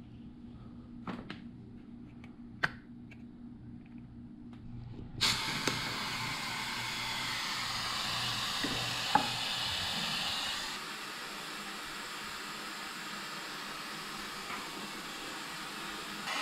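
A few small clicks as the plastic brake reservoir cap is handled. Then, about five seconds in, a compressed-air-driven vacuum brake bleeder starts hissing steadily, pulling DOT 4 brake fluid out through the rear caliper's bleeder valve. The hiss drops slightly in level about two-thirds of the way through.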